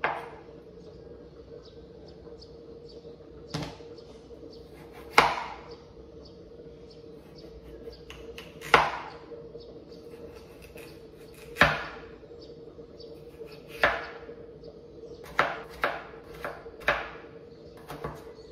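Kitchen knife cutting through raw peeled potato and knocking on a chopping board while dicing it into cubes. Single cuts come every couple of seconds, then quicker ones near the end.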